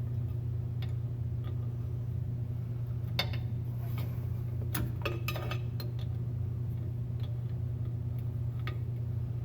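Scattered light metallic clicks and clinks of a hand wrench working on a rear drum-brake wheel cylinder to remove it, at irregular intervals, over a steady low hum.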